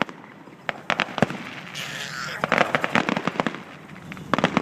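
Aerial fireworks going off in rapid crackling clusters, with a brief hiss just before two seconds in.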